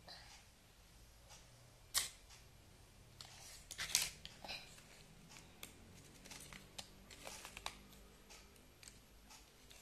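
Scattered clicks and knocks of plastic take-apart toy fire truck parts being handled and taken apart, with a sharp click about two seconds in and a cluster of louder knocks around four seconds.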